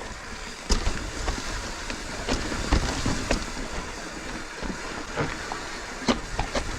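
Mountain bike riding over a rough trail: tyre noise on dirt and rocks with frequent sharp rattles and knocks from the bike.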